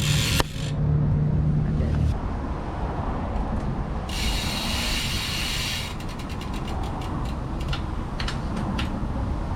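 Ratcheting clicks of a BMX rear hub's freewheel as the wheel is turned, with a two-second stretch of fast buzzing clicks about four seconds in, and scattered single clicks after it.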